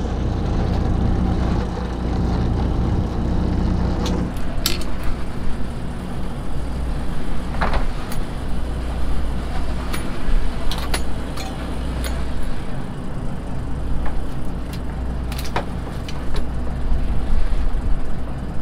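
Boat's engine and hydraulic hauler running steadily while the halibut longline is hauled in, with sharp clicks and knocks of gear scattered throughout. About four seconds in, part of the drone drops away and the sound turns rougher.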